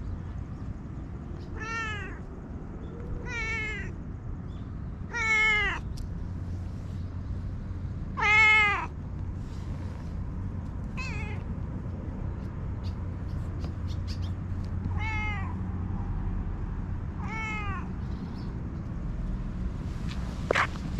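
Stray brown tabby cat meowing repeatedly, about seven meows spread out, the loudest about five and eight seconds in, over a steady low rumble.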